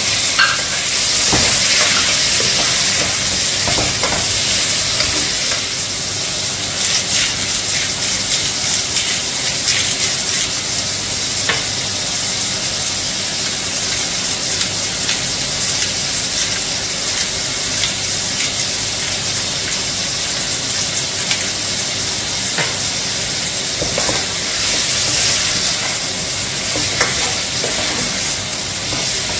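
Cubed pork sizzling as it sautés with diced onion in a nonstick pot, with a spatula scraping and clicking against the pot now and then.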